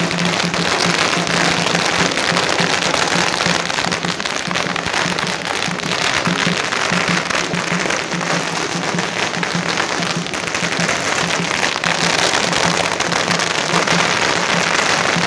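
Strings of firecrackers crackling densely and without a break, over a steady low drumbeat.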